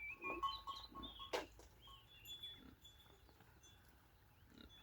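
Faint outdoor farm ambience: small birds chirping in short high notes, with one sharp click about a second and a half in.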